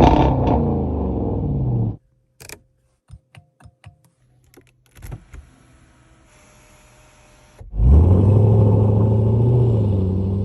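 Jaguar F-Pace SVR's supercharged 5.0-litre V8 flaring loudly and falling in pitch, then cut off after about two seconds. A few clicks follow, then the engine starts again with a sharp flare and settles to a steady idle.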